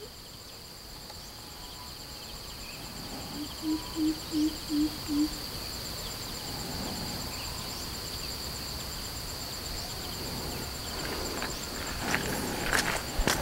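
Steady high-pitched insect drone in a lychee orchard, with five low, evenly spaced hoots from an animal about four seconds in. Near the end come footsteps crunching over dry fallen leaves.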